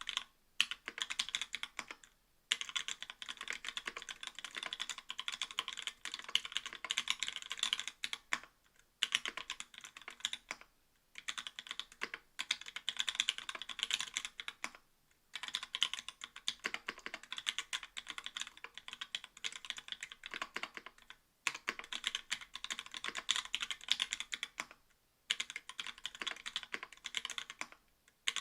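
Typing on a mechanical keyboard with stock YOK Trash Panda linear switches in an aluminium plate, capped with GMK keycaps: fast runs of keystrokes lasting a few seconds each, broken by several brief pauses.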